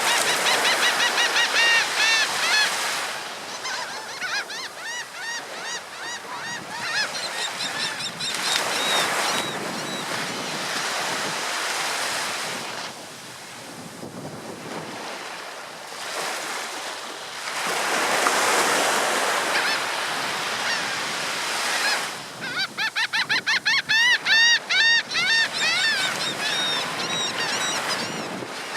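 Ocean surf breaking and washing in, swelling every several seconds, with seagulls calling over it in rapid series of arched cries. The calls are loudest at the start and again near the end.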